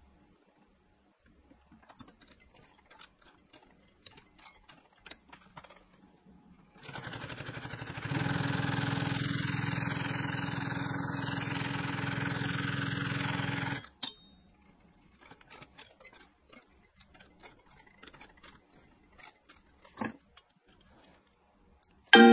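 Highlead GC0618-1-SC industrial sewing machine stitching leather. It starts about seven seconds in, comes up to speed a second later, runs steadily with a fast even pulse for about six seconds, then stops. Light clicks of the work being handled come before and after, with a single knock near the end.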